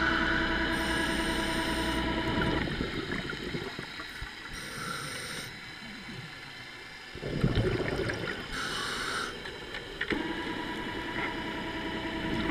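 A scuba diver breathing through a regulator underwater. There is a short hiss on each inhale, then a rush of exhaled bubbles, about every four seconds. Sustained ambient music chords play at the start, fade out, and come back near the end.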